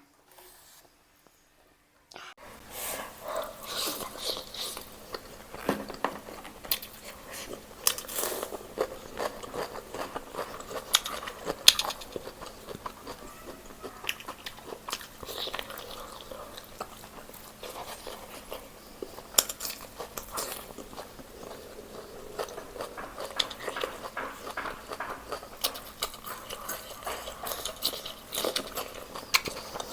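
Close-up mouth sounds of chewing and biting whole chicken: wet smacks with sharp clicks and crunches coming thick and irregular. They start about two seconds in, after a near-silent moment.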